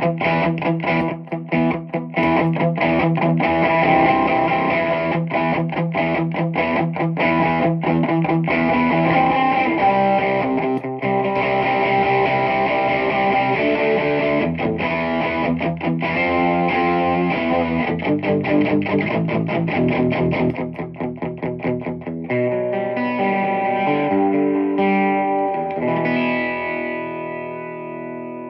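Distorted electric guitar played through a Peavey 6505+ combo amp: fast, tightly muted chugging riffs, then held chords left ringing and fading away near the end.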